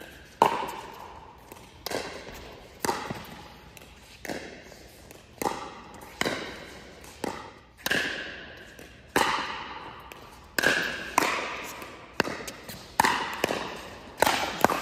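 Pickleball rally: sharp pops of paddles and court bounces against the hard plastic ball, about one a second and somewhat irregular, each ringing briefly in the echo of an indoor court.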